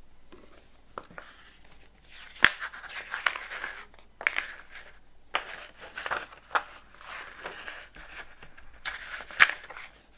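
A glossy paper CD booklet being handled and its pages flipped, rustling in a string of short bursts, with two sharp taps, one about two and a half seconds in and one near the end.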